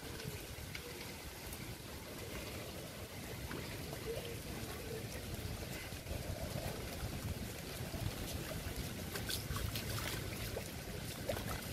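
Steady rain in strong wind, the wind rumbling on the microphone, with scattered sharp ticks of drops that grow more frequent in the second half.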